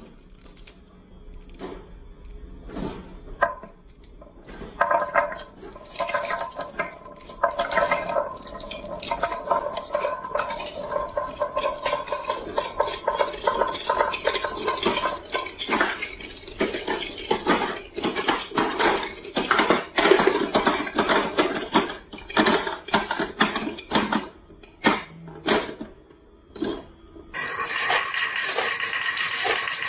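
Marbles clicking and rolling down a wooden marble run, at first a few separate clicks, then from about four seconds a dense, continuous clatter with a ringing tone. Near the end it changes abruptly to a steady hiss.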